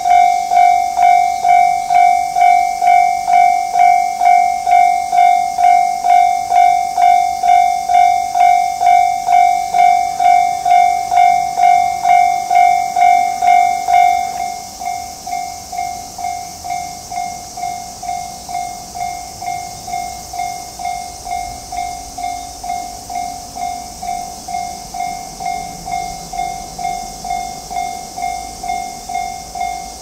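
Japanese railroad crossing alarm ringing: an electronic bell striking one steady tone about twice a second, warning that a train is approaching. About halfway through it drops noticeably quieter and keeps ringing at the same pace.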